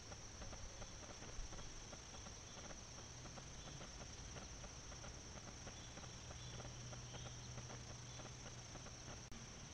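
Faint outdoor field ambience: a steady high-pitched insect drone with many small soft ticks. A low hum comes in about three seconds in and stops shortly before the end.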